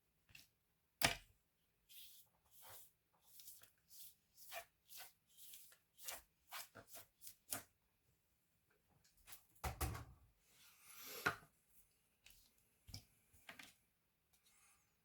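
Small clicks, taps and scrapes of laptop parts being handled and worked on by hand. There is a sharp click about a second in and a heavier knock with rustling around ten seconds in.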